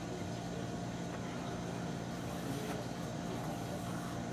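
Steady low hum of background room noise, with a couple of faint ticks.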